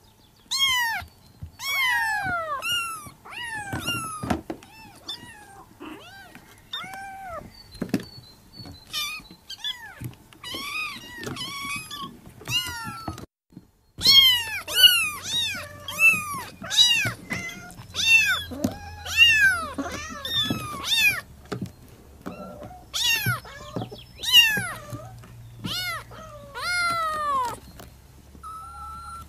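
Several Persian kittens meowing over and over, calling for their mother: short high-pitched cries that rise and then fall, several voices overlapping. There is a brief break about halfway through, after which the cries are louder, and a few knocks in the first half.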